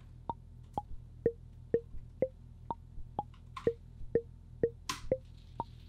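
Intellijel Plonk physical-modelling voice playing short marimba-like notes, about two a second at changing pitches: a stepped melody sequenced by the Teletype tracker. Two brief clicks sound partway through.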